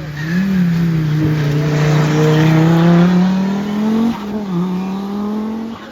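Rally car engine at full throttle, its pitch climbing slowly for about four seconds, with a brief dip like a gear change before it holds steady. The sound breaks off abruptly near the end.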